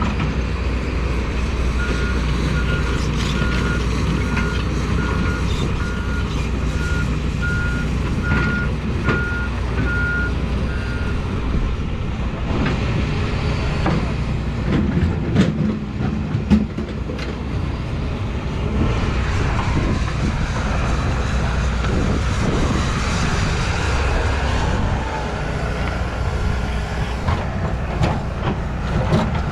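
Excavator's diesel engine running under steady load, with its travel alarm beeping at one even pitch about a dozen times during the first third. Later come scattered metallic knocks and clanks from the machine working.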